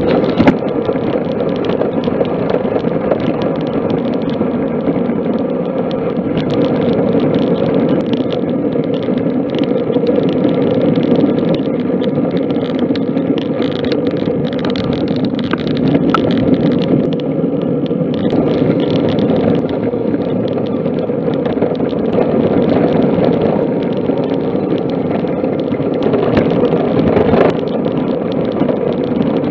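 A steady loud rush of wind buffeting the microphone of a camera on a moving road bike, mixed with tyre noise on tarmac, with occasional small knocks.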